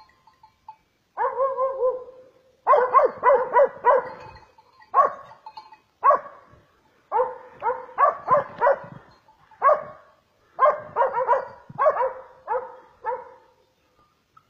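Dog barking in quick runs of short, high-pitched barks, about four a second, broken by brief pauses.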